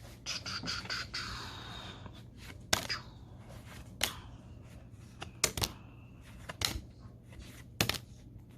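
Pokémon trading cards being handled: a papery rustle, then about five sharp clicks roughly a second apart as cards are flicked or set down.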